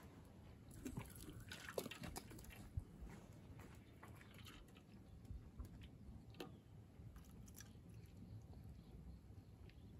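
Faint pouring of coffee from a kettle through a small metal mesh strainer into stainless steel cups, with a few light clicks, most of them in the first three seconds.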